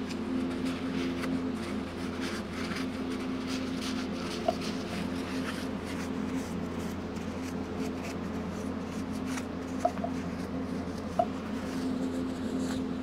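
Paper towel rubbing along the seam of an aluminium motorcycle engine crankcase, wiping off excess ThreeBond sealant, as faint scratchy scrubbing over a steady background hum. Three short sharp clicks stand out, near the middle and twice near the end.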